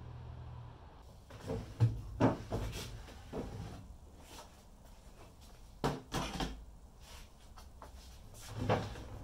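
Wooden drawers of an antique chest of drawers being pulled out, handled and slid back in, wood scraping and knocking against the wooden carcass in three short bursts of clatter.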